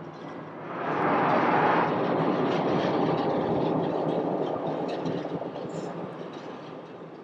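Jet airliner engine noise: a loud rush swells up about a second in, holds for several seconds, and fades away near the end.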